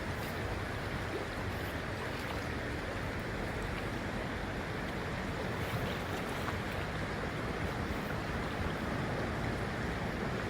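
Steady rushing of flowing creek water, the creek running high and fast.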